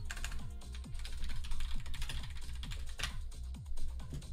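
Typing on a computer keyboard: a quick run of key clicks as a search query is entered. Faint background music with a steady low beat plays underneath.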